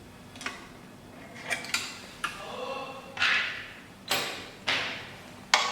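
A decoder being pulled out and a cutter fitted into an SEC E9 key-cutting machine: a series of about eight sharp metal clicks and knocks, each fading out within half a second.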